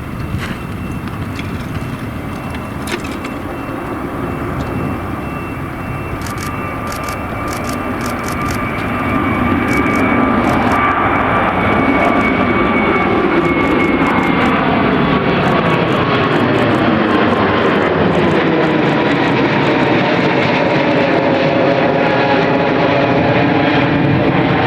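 Airliner's engines as the aircraft flies close past, the noise building and growing louder about nine seconds in, with a whine that slowly drops in pitch and a swirling, phasing sound in the second half as it passes over.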